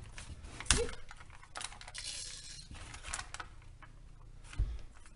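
Freezer paper crinkling and crackling as it is peeled away from the sides of a firm soap loaf, in irregular small clicks. A sharper crackle comes just under a second in, and a dull bump near the end.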